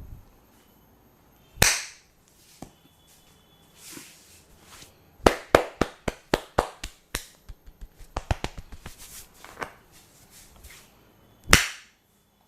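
Sharp hand slaps of a barber's head massage: a single loud slap, then a quick run of about ten slaps in two seconds, a lighter patter of faster taps, and another loud slap near the end.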